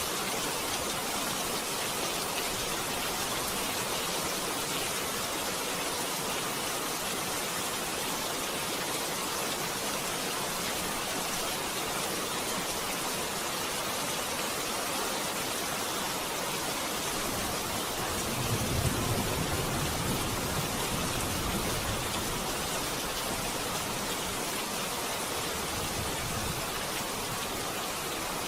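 Steady hiss of water, like rain or a rushing river, with a brief low rumble about two-thirds of the way in.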